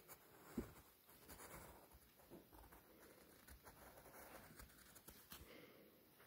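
Faint scratching of a pencil drawing on paper, with a few soft clicks.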